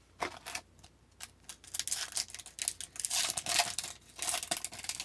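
Foil wrapper of a hockey card pack being torn open and crinkled by hand, a busy run of crackling and rustling that builds from about two seconds in.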